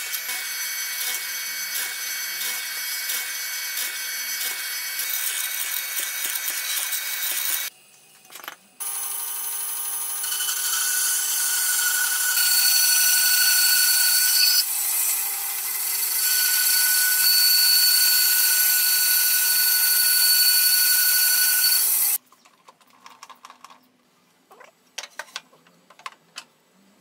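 A bench drill press bores into a pine board for several seconds and stops. After a short pause a band saw runs and cuts through pine for about thirteen seconds, with a steady hum and a high whine. It cuts off, and a few faint knocks of wood being handled follow.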